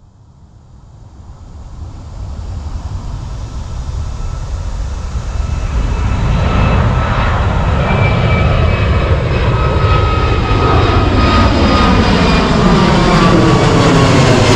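Twin-engine jet airliner flying low toward and over the listener. Its engine noise swells steadily over the first several seconds, then holds loud, with a steady high whine on top.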